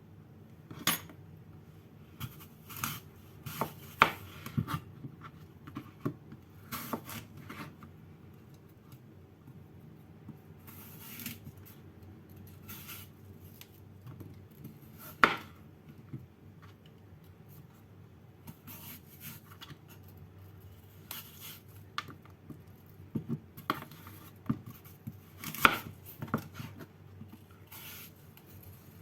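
Irregular knocks and clinks of kitchen food preparation: a knife on a cutting board and utensils or dishes being handled, with a few sharper knocks standing out. A faint steady hum runs underneath.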